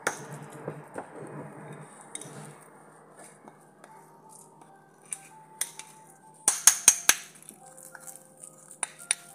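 Metal spoon stirring and scraping a thick spice paste in a ceramic dish. About six and a half seconds in, a quick run of sharp clinks as the spoon knocks against the dish.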